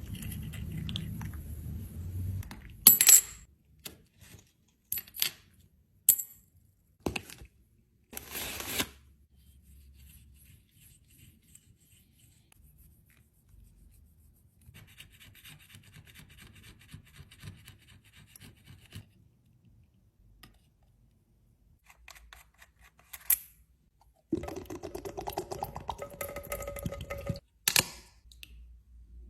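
Repairing broken eyeshadow. A string of sharp clicks and taps, stretches of faint scratchy rubbing and a louder scraping stretch near the end.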